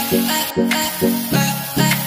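Background music of plucked-string notes on a steady beat, about two notes a second.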